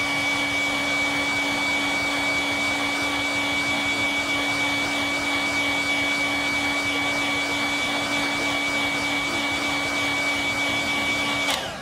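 Hot-air blower running steadily with a constant hum and a high whine over the rush of air, then cutting off near the end. It is heating plastic action-figure limbs to soften the joints so the parts can be pulled off.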